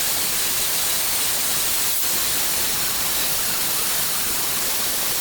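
Electric grinder working against the steel of a hedge trimmer's cutter blade, a steady, even hiss of metal being ground.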